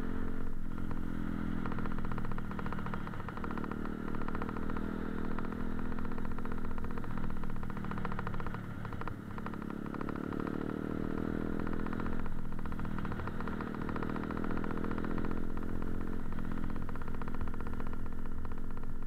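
Motorcycle engine under way on the road, its pitch climbing over a few seconds and then dropping back sharply, several times over, as the rider accelerates and changes gear or eases off.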